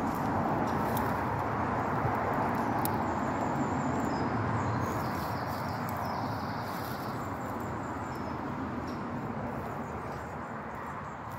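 Steady outdoor background noise, with faint high bird chirps a few seconds in.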